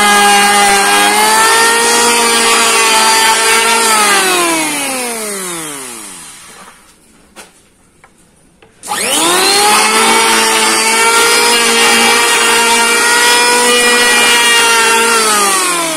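Modern electric hand planer fitted with new TCT blades, its motor whining at full speed as it planes a board, running smoothly. About four seconds in it is switched off and the whine falls as the cutter block spins down. After a short pause it is switched on again, spins quickly back up to speed and planes again, and near the end it starts to spin down once more.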